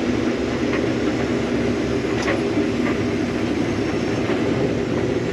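Combine harvester running steadily while harvesting soybeans, heard from inside the cab as a constant engine and machinery drone with a few faint ticks.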